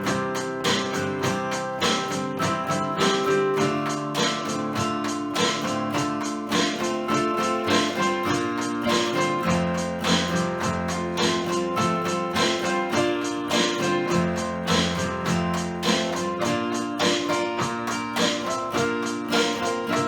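Acoustic guitar strummed in a steady rhythm, its chords changing every few seconds.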